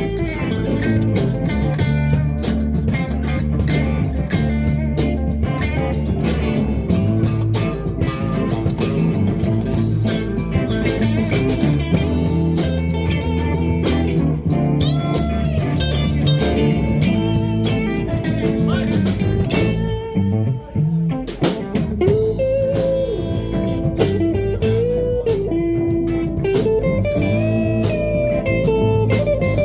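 Live blues band playing a minor blues, with electric guitar over the band; in the last third a guitar lead plays bent notes.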